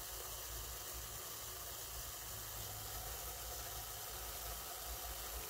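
Compressed-air aerosol generator running at 3 atmospheres, a steady even hiss as it blows Varidol anti-varroa mist through its nozzle into a beehive entrance.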